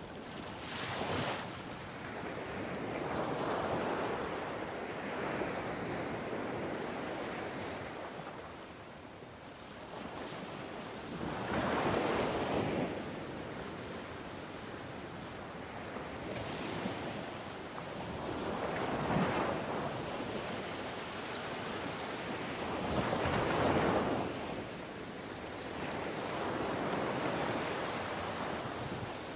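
Ocean waves breaking and washing on the shore, a steady rush of surf that swells with each wave, about every four to seven seconds.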